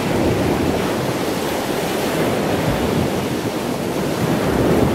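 Ocean surf: a steady wash of breaking waves, swelling slightly near the end.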